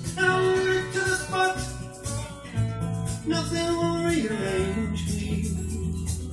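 Music from a vinyl record playing on a Dual 1225 turntable.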